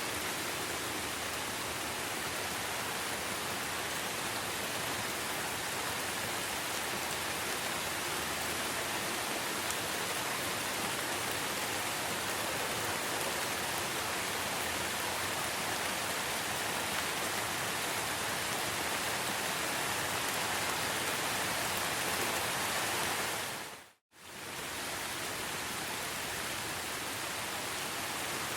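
Steady, dense rain falling, a continuous even hiss. About 23 seconds in, it fades out to silence for a moment and returns about a second later, like a loop seam in the recording.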